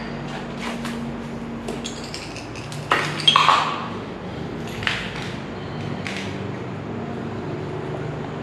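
Irregular clicks and clinks from footsteps, loudest about three seconds in, over a steady low hum.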